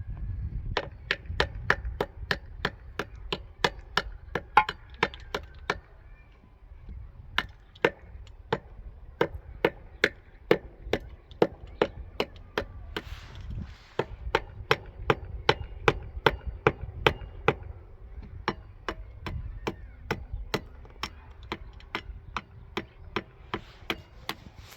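Steady run of sharp chopping strikes on wood, about two a second, broken by a few short pauses.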